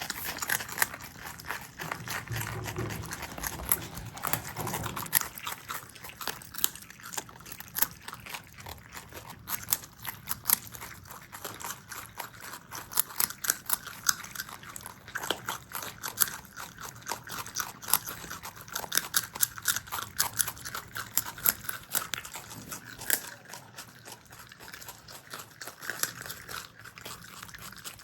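Pet marmots chewing and crunching food: a dense, irregular run of sharp crunching clicks. A low rumble sounds for a couple of seconds near the start.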